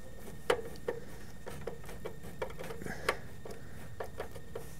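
Screws being centered and turned into a power supply's mounting holes on a computer case: irregular light clicks and ticks, with two sharper taps about half a second and three seconds in.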